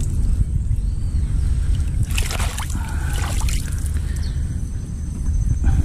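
Water sloshing and trickling as piranhas are rinsed by hand, with splashes about two and three seconds in and again near the end, over a steady low rumble.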